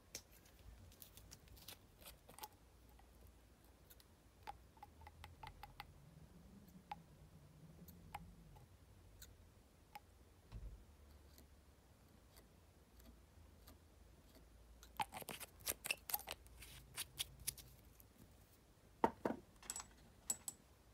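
Scattered faint clicks and taps of a small glass bottle of head cement and its brush cap being handled. A denser run of sharper clicks comes about fifteen seconds in, and a few more near the end.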